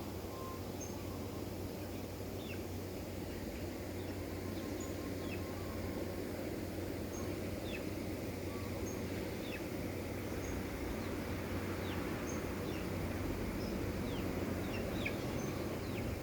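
Young chickens peeping: scattered short falling chirps, several every second, over a steady low background hiss.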